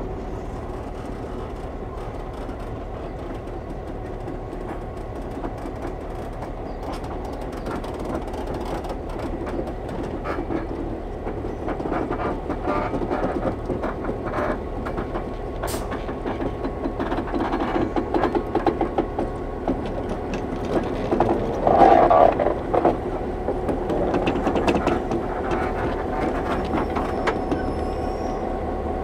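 DBR-class diesel locomotive rolling slowly along the track: a steady diesel engine drone with wheels clicking and clanking over the rails. It grows louder as the locomotive draws near, with a burst of clanks about 22 seconds in.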